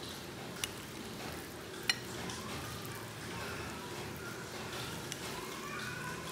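Chopsticks and a metal spoon stirring sliced raw beef in its marinade on a plate, with sharp clicks of the utensils against the plate twice in the first two seconds and once more, fainter, later on.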